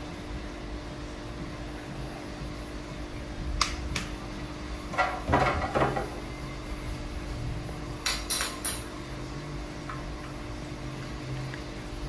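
Short clinks and knocks of a spoon and sauce bottles handled on a glass-topped table: one click about three and a half seconds in, a cluster of knocks around five to six seconds, and three quick clicks around eight seconds, over a steady low background hum.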